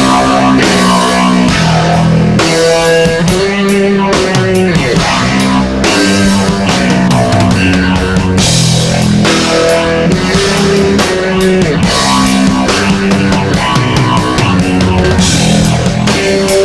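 Electric bass guitar played through a jet phaser effects pedal, a run of bass notes over a steady drum beat.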